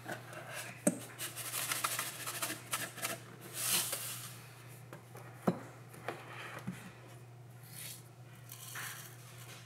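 Spout of a Morton salt canister clicked open and salt shaken out with a brief hiss about four seconds in, then hands rubbing the salt between the palms. A sharp knock comes about five and a half seconds in.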